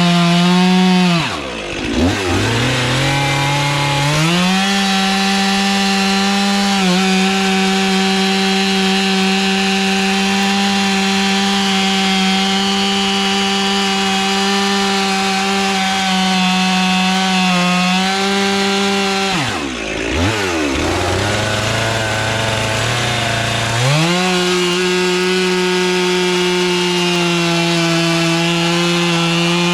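Stihl MS 400 C two-stroke chainsaw cutting through firewood logs at full throttle. Twice, about a second and a half in and again about 20 seconds in, the engine drops briefly toward idle between cuts, then revs back up and settles into a steady pitch under load.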